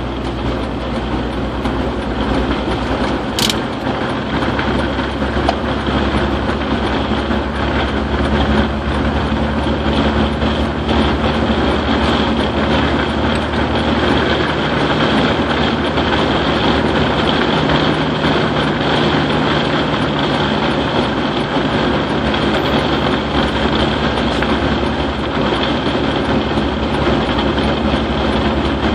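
Steady road and engine noise inside a truck's cab cruising on a highway at about 35 mph: tyre hiss over a constant low engine hum. A single brief click about three and a half seconds in.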